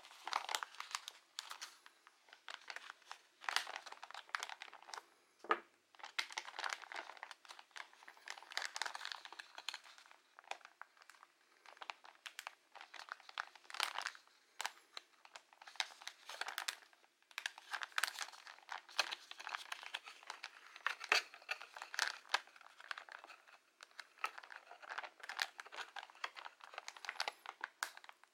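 Thin clear plastic packaging crinkling and crackling in irregular spurts with short pauses as fingers handle it and work it open with a small blade.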